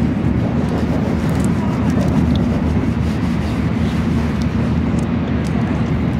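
Steady low rumble of a Shinkansen bullet train running at speed, heard from inside the passenger car.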